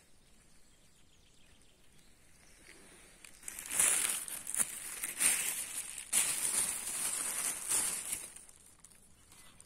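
Thin plastic carrier bag crinkling and rustling as it is handled, beginning about three and a half seconds in as a run of loud crackles lasting about five seconds.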